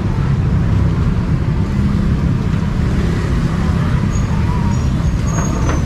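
Outdoor street-market ambience: a steady low rumble with a few faint high chirps or squeaks in the second half.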